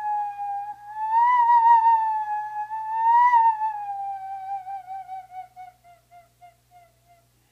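Iwabue, a Japanese stone flute made from a natural stone with a bored hole, blown in one long, clear whistling note with a slight waver. The note swells twice, then slowly sinks in pitch and breaks up into fading pulses before stopping near the end.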